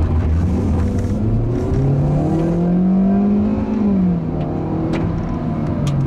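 The 2014 Hyundai Accent's 1.6-litre direct-injection four-cylinder engine accelerating, heard from inside the cabin. Its pitch climbs steadily, then drops sharply about four seconds in as the six-speed automatic shifts up.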